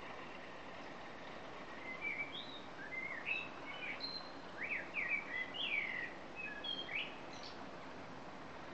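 A songbird singing a quick, varied run of chirps and short whistled notes for about five seconds, starting about two seconds in, over a steady background hum.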